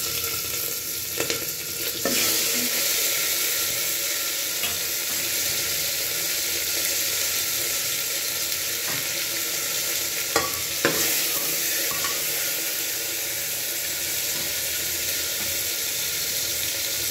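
Hot oil frying chopped green chillies and sliced tomatoes in a pot: a steady sizzle that grows louder about two seconds in, with a few light knocks.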